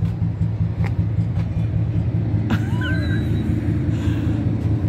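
Steady low rumble of an idling vehicle engine, with a click and a brief high chirp about two and a half seconds in.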